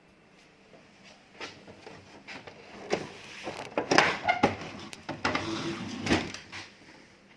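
Handling noises: a run of knocks, clicks and scraping rustles, busiest in the middle seconds.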